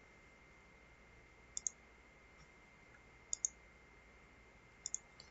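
Three computer mouse clicks, each a quick press-and-release pair, about a second and a half apart, over faint room tone with a thin steady high whine.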